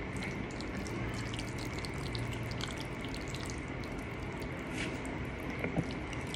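Forks twirling and lifting saucy spaghetti, making many small wet, sticky clicks and squishes, with a sharper click near the end. A faint steady whine and hiss sit underneath.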